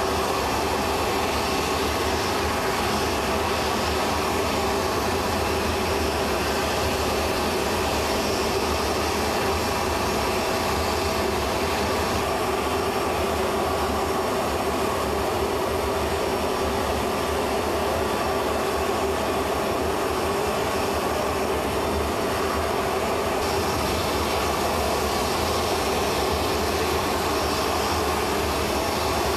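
Steady drone of an aircraft turbine running, an even humming whine that holds at one level with no breaks.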